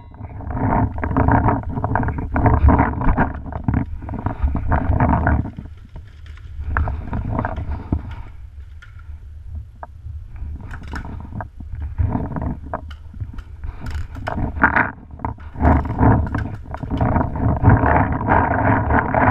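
Wind buffeting a head-mounted camera's microphone, with rustling and scattered knocks from the player moving, easing off for a few seconds in the middle.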